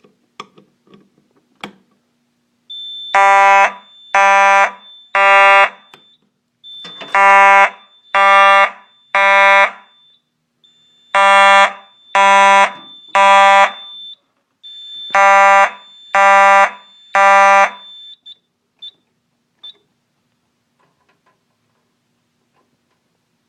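Simplex 4903-9219 mechanical fire alarm horn sounding in the code 3 temporal pattern: three buzzing blasts, a pause, four rounds in all. It is a general alarm set off by testing the duct detector test station.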